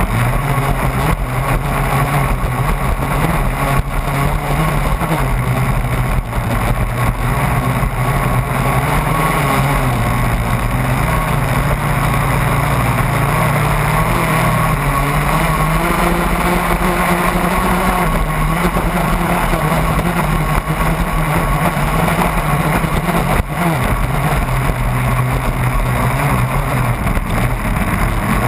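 Engine of a radio-controlled racing catamaran running at speed, heard from a camera on its deck, over the steady hiss of water and spray off the hull. The engine note dips about ten seconds in, then rises and holds higher for much of the rest.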